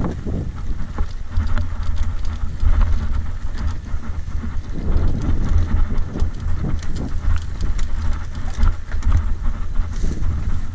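Wind buffeting the microphone with the clatter of a mountain bike rolling down a rocky dirt trail: tyres crunching over gravel and stones, and the bike rattling with many small knocks over the bumps.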